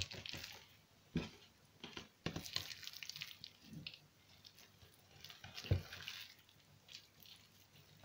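Hands rolling and pressing a raw boneless leg of lamb on a countertop: soft wet squishes of the meat with a few sharper knocks, the loudest a little before six seconds in.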